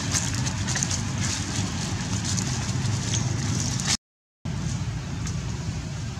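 Dry leaf litter crackling and rustling, with a steady low rumble underneath. The sound cuts out completely for about half a second around four seconds in.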